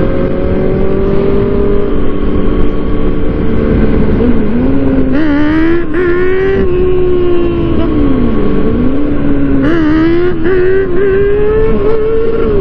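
Yamaha R1 sport bike's inline-four engine at speed, heard from the rider's seat. Twice the revs drop off and then climb hard, the engine note rising in steps through upshifts, about four and eight seconds in.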